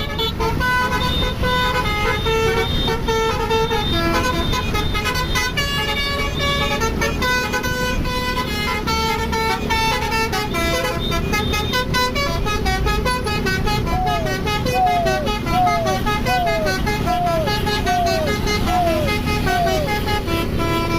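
Bus basuri horn, a multi-tone musical horn, playing a tune in quick stepping notes over a steady low rumble. Near the end comes a run of about seven short falling swoops.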